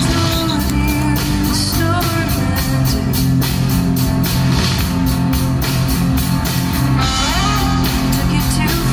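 Rock music with electric guitar over a steady drum-kit beat.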